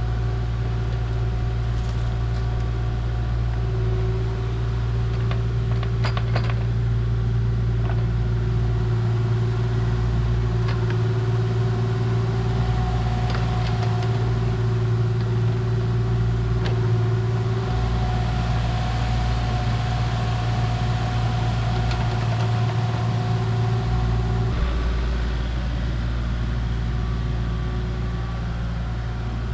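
A vehicle engine running steadily at an even speed, with a few light clicks and knocks over it.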